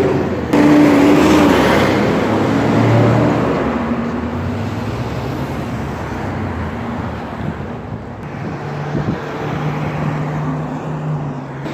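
Street traffic: trucks and cars driving past close by, their engines humming over tyre noise, loudest in the first few seconds as a box truck goes by, with another engine humming steadily from about eight seconds in.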